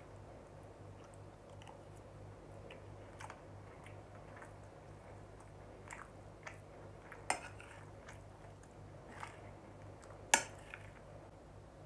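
Quiet eating sounds: soft chewing of rice with scattered short clicks of a metal spoon against the plate. The two sharpest clicks come about seven and ten seconds in. A faint low hum runs underneath.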